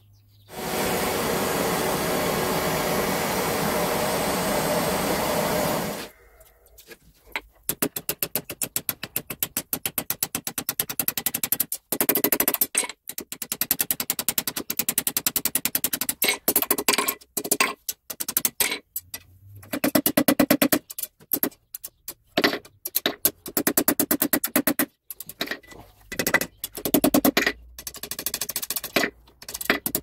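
Electronic background music with a fast pulsing beat. It opens with a steady hiss that cuts off suddenly about six seconds in.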